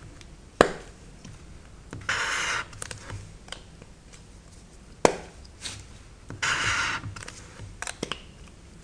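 Plastic highlighter cap snapping off or on with a sharp click, twice, each time followed by a scratchy half-second swipe of the marker tip across paper. A few small ticks near the end.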